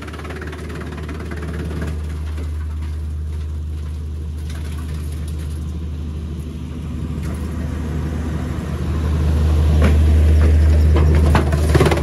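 Teknamotor Skorpion 500 EB/2 electric wood chipper and its conveyors running with a steady low hum that grows louder about nine seconds in. A few sharp clicks and rattles come near the end.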